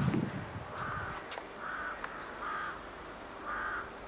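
Crows cawing, short harsh calls repeated about four times at uneven intervals, with a brief low rumble at the very start.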